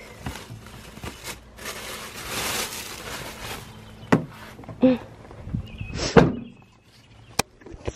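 Plastic shopping bag rustling as a faux fur rug is handled, then a few knocks and a car's rear liftgate slammed shut about six seconds in, the loudest sound.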